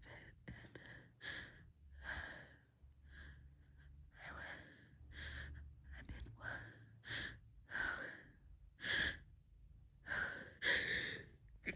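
A woman in a sneezing fit taking short, sharp gasping breaths over and over, about one every half second to a second, as she tries to hold back her sneezes. The breaths get louder near the end.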